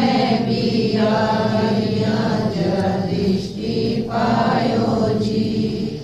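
Devotional shabad music: choir-like chanted singing in long held notes.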